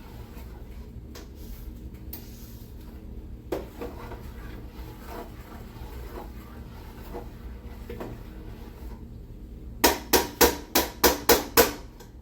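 Spoon stirring thick sauce in a large pot, making faint scraping strokes over a steady low hum. Near the end come about eight quick, sharp taps, four or five a second, as the spoon is knocked against the pot.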